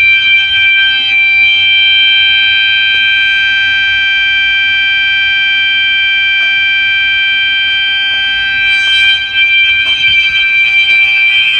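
Electronic fire alarm horns, a System Sensor and a Gentex SHG, sounding one steady, unbroken high-pitched tone.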